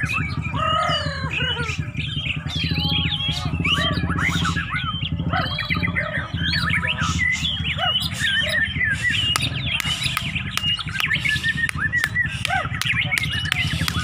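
Several caged white-rumped shamas (murai batu) singing at the same time in competition: rapid, overlapping whistles and chirps that rise and fall, over a steady low hum.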